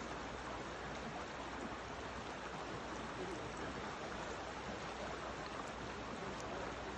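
Fast, shallow river water rushing over a riffle: a steady, even rush of flowing water.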